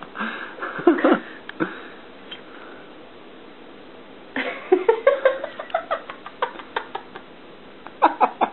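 A domestic cat vocalizing in short cries: a few in the first second or so, then after a pause a rising cry and a quick run of short sounds.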